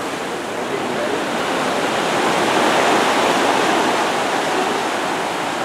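Ocean surf washing in over rocks and sand at the water's edge: a steady rushing hiss of breaking foam that swells about halfway through and then eases.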